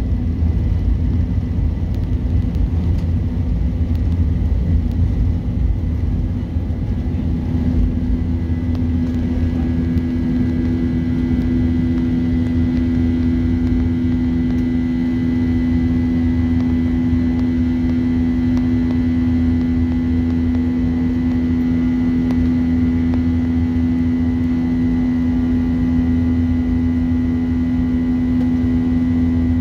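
Boeing 737-800 cabin noise during the takeoff roll and climb-out, its CFM56-7B engines at takeoff thrust. A rough rumble from the runway smooths out about seven seconds in as the plane lifts off. From then on a steady engine hum holds, with a faint high whine above it.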